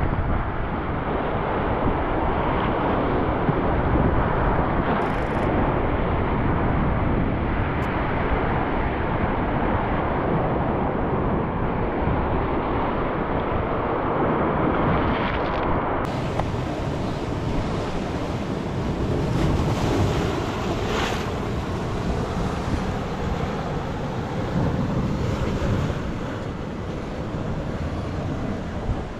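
Sea surf washing and breaking against a rocky shore, with wind noise on the microphone. It is a steady, continuous noise that turns brighter and hissier about halfway through.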